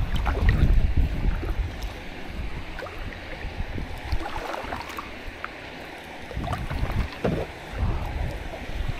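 Kayak paddle strokes splashing in river water, over the steady wash of the current. Wind buffets the microphone in the first second or two.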